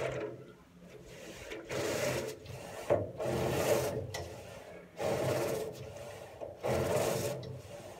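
Long-handled brush scrubbing and scraping a wheelbarrow, in about five long strokes roughly one every one and a half seconds.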